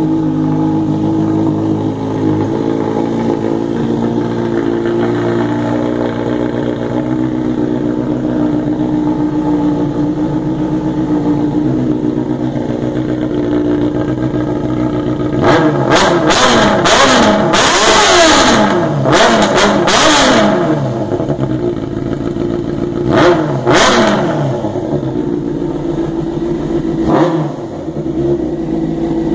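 Honda CBR 600F inline-four engine running through a 4-into-1 header and Coyote sport exhaust with the catalytic converter removed. It idles steadily for the first half, then is revved in a series of throttle blips that rise and fall through the second half.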